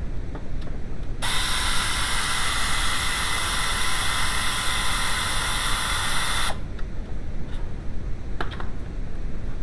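A steady hiss that starts abruptly about a second in and cuts off sharply about five seconds later, with a faint steady tone in it, over low rumble and a few light clicks.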